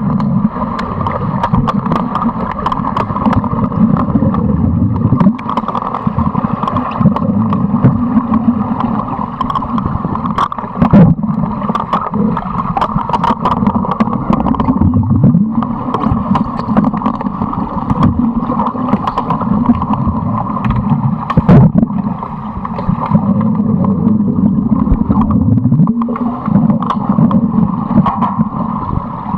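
Muffled underwater noise in a swimming pool during underwater hockey play: a steady churning rumble of water and bubbles, with many scattered sharp clicks and knocks.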